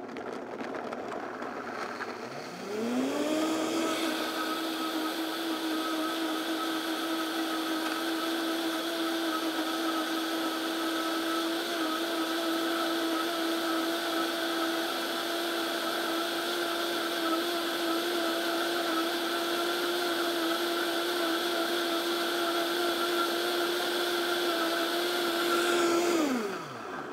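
Vitamix Venturist V1200 blender motor running, its pitch rising to a steady high whine about three seconds in as it speeds up, then blending a thick smoothie of frozen berries at full speed before spinning down shortly before the end.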